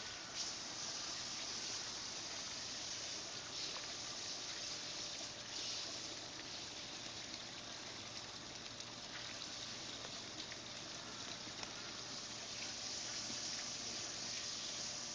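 Steady, even rush of running water, with no distinct events.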